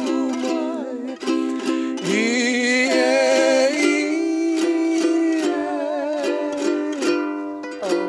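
A ukulele strummed in a steady rhythm while a man and a woman sing a Hawaiian medley together, holding long notes with vibrato.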